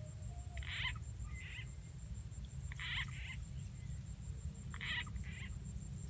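Recorded frog call, played on repeat as a lure for frogs: a two-part croak that repeats about every two seconds, three times, over a steady low background noise.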